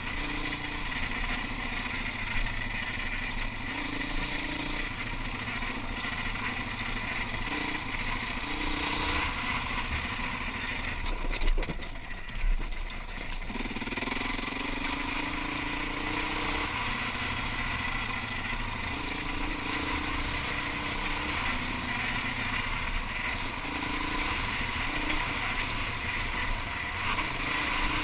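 Enduro motorcycle engine running as the bike rides a rough gravel track, heard from a helmet-mounted camera, its note stepping up and down with the throttle. About halfway through the engine note drops away for a couple of seconds, with two sharp knocks, then picks up again.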